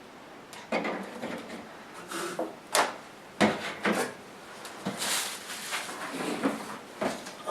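Handling noises from the box and its contents: a string of sharp knocks and clicks, about half a dozen, with rustling in between.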